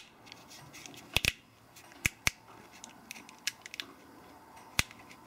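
Irregular sharp clicks and small plastic ticks from a vehicle wiring harness and its corrugated plastic loom being handled and poked while hunting an intermittent connection, which is suspected to be a cold solder joint. Two close pairs of clicks come a little over a second in and about two seconds in, with a single click near the end.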